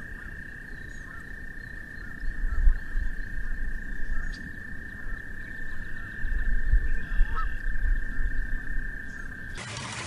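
A frog calling with one long, steady high-pitched trill that cuts off near the end, over bouts of low rumble.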